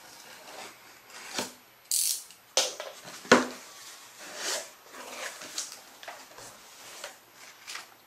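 Cardboard box being opened by hand: packing tape slit and pulled off, the flaps folded back and a paper sheet handled. It comes as a string of separate rips, scrapes and rustles, with a hissy rip about two seconds in and a sharp knock a little over three seconds in, the loudest.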